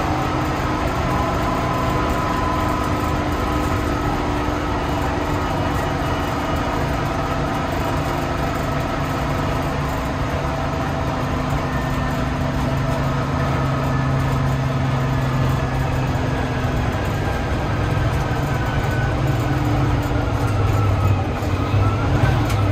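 1980 American LaFrance pumper fire truck's engine running while the truck drives, heard from inside the cab as a steady engine drone with road noise. The engine note rises near the end.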